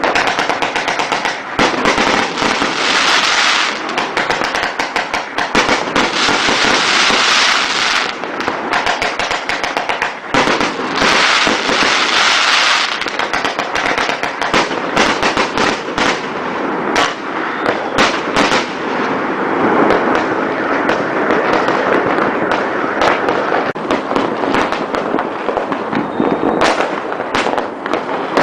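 Fireworks and firecrackers going off all around, a dense, continuous crackling full of sharp pops and bangs.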